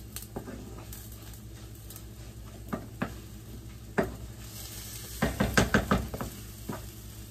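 Hoecakes frying in vegetable oil in skillets with a steady sizzle, while spatulas scrape and tap against the pans. A few single taps come in the middle, and a quick run of scraping clatter follows about five seconds in.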